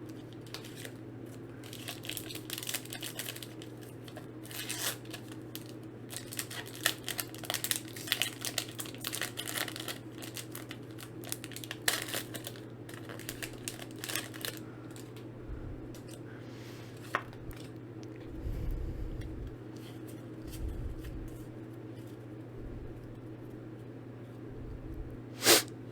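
A Pokémon card booster pack's foil wrapper being torn open and crinkled, dense crackling for the first half or so. Quieter handling follows, with a few low thuds and one sharp click near the end, over a steady low hum.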